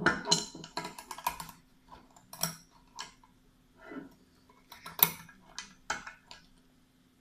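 Small metal clicks and rattles from Jericho 941 pistol parts being handled while the recoil spring is fitted into the barrel: a quick cluster at first, then single sharp clicks about every half second to a second.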